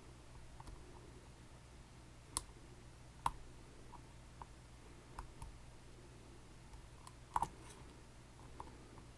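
Scattered small clicks and taps from work on a Dierre New Power lock, the loudest a quick double click about seven seconds in, over a faint steady hum.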